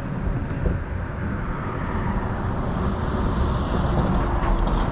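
Steady low rumble of road traffic crossing the bridge, swelling a little in the second half as vehicles go by.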